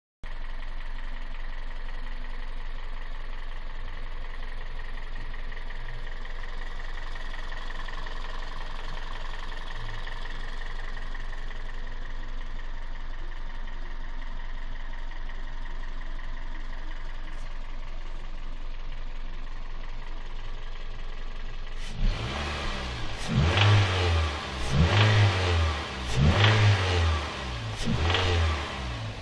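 Toyota 1ZZ 1.8-litre four-cylinder engine idling steadily, then revved in about five quick throttle blips near the end. It is run to show a knock.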